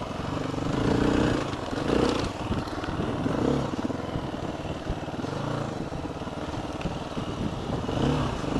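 Dirt bike engine running while the bike is ridden along a narrow dirt trail, revving up and easing off several times as the throttle is worked.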